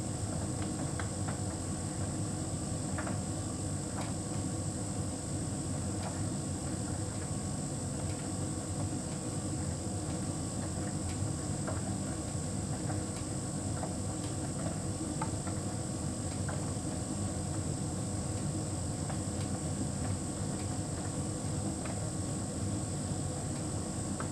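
Hotpoint heat pump tumble dryer running steadily, with a hum from the drum motor and compressor and a steady high whine. Faint light clicks come now and then.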